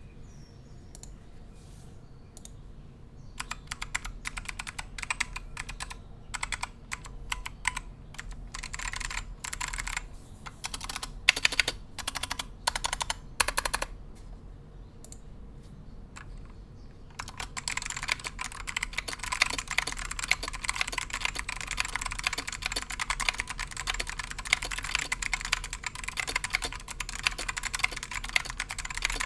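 Mechanical keyboard with modded, dry-lubed Alps SKCM Black clicky switches on a brass plate in a wooden case, with ABS keycaps, being typed on. Keystrokes come in scattered runs at first, pause briefly, then turn into fast, continuous typing from a little past halfway.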